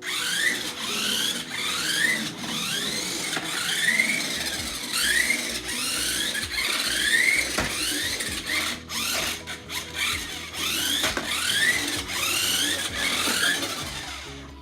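Toy RC car's small electric motor and gears whining in repeated rising sweeps, about one and a half a second, as the throttle is pulsed. There are a few sharp knocks about eight to nine seconds in.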